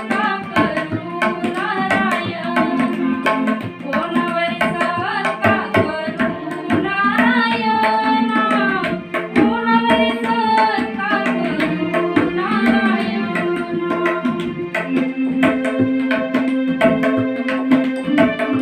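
A singer's voice with organ accompaniment and tabla strokes keeping time; about fifteen seconds in the voice stops, leaving the organ's held notes over the tabla.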